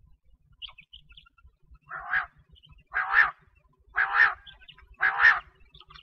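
Common quail (batair) calling: a run of harsh calls about once a second, each under half a second, starting about two seconds in. A few faint, short high chirps come before them.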